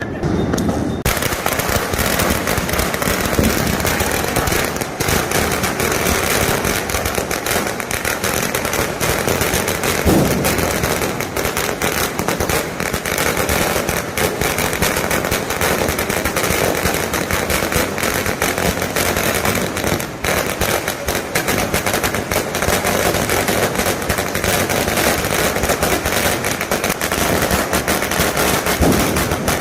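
Red Fort 3000 garland firecracker bursting: a long string of small crackers going off in a rapid, continuous crackle of bangs.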